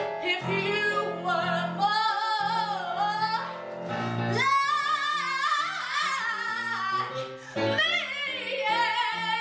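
A woman sings a musical-theatre song into a handheld microphone, holding long notes with a wavering vibrato, over keyboard accompaniment.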